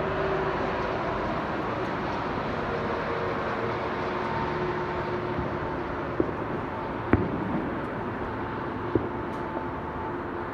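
A steady outdoor rumble with a few short, sharp fireworks pops in the second half, the loudest about seven seconds in.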